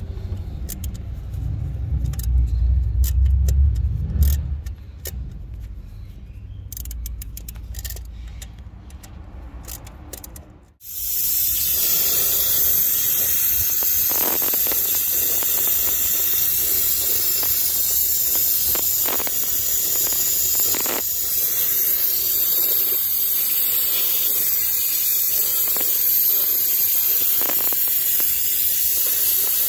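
Low handling rumble and scattered light metallic clicks as hands and a tool work on engine hose fittings. About 11 seconds in the sound cuts off and gives way to a loud, steady hiss with a few faint clicks beneath it.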